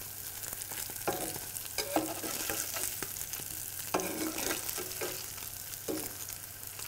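Slices of boiled cod roe frying in butter and oil: a steady sizzle with small spits as the fine roe grains pop in the heat. A metal spatula scrapes and taps on the pan a few times as the slices are turned.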